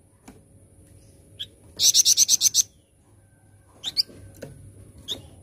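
Flamboyan songbird singing: a loud, fast run of about eight repeated high notes about two seconds in, with short, sharp rising chirps before and after it.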